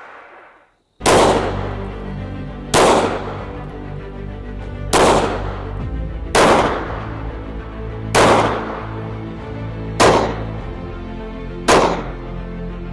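Pistol shots: seven single shots spaced about one and a half to two seconds apart, each ringing out briefly, over a steady low music drone. The first comes about a second in.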